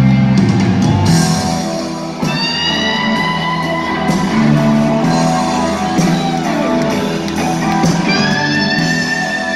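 Live rock band playing loud, with a lead electric guitar holding long notes that bend up and sustain, one about two seconds in and another near the end.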